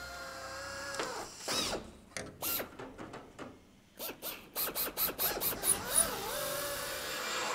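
Hand-held pneumatic drill on an air hose, drilling sheet metal. It gives a steady whine, then a string of short trigger bursts, each spinning up. The bursts quicken to about five a second in the middle, then the drill settles into a steady run near the end.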